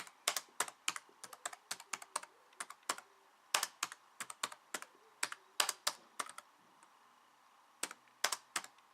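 Typing on a computer keyboard: irregular runs of sharp key clicks, stopping for about a second and a half about two-thirds of the way through, then a few more keystrokes.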